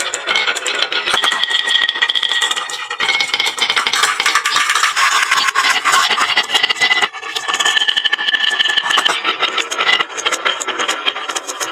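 Many marbles rolling and clattering down a wooden marble run: a dense, continuous rattle of clicks with a few steady ringing tones running through it.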